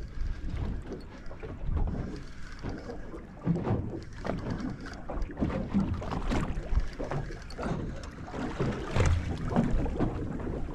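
Wind buffeting the microphone and water slapping against a small boat's hull, with scattered short knocks.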